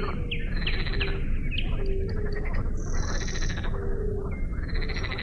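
A chorus of frogs croaking at a pond, several calling over each other: a run of quick chirping calls in the first second and a half, short low croaks recurring throughout and a brief high trill midway, over a steady low background rumble.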